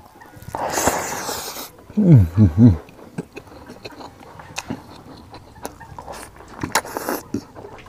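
Mouth sounds of a man eating rice and pork by hand: a noisy slurp as he takes a mouthful about half a second in, three quick hummed "mm" sounds around two seconds, then wet chewing and lip-smacking clicks, denser near the end as he bites into a piece of pork trotter.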